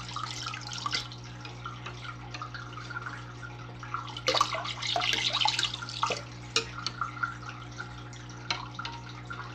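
Water splashing and sloshing in a small tank as the Daphnia eggs floating on the surface are stirred and wetted with a plastic tool. The splashes come in irregular bursts, busiest about halfway through, over a steady low hum.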